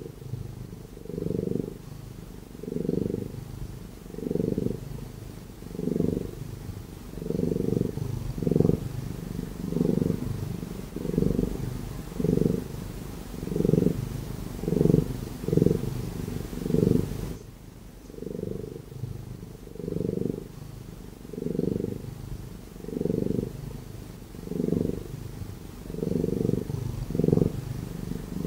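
Domestic cat purring: a low, continuous purr that swells and fades with each breath, about every second and a half.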